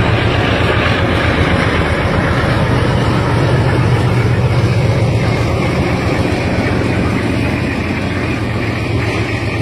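Diesel freight train passing close by: the locomotive's engine running with a steady low hum, then the rumble of loaded flatcars rolling over the rails, easing slightly in the second half.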